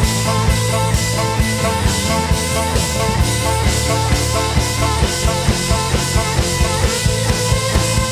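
Rock band playing an instrumental passage with a steady drum beat.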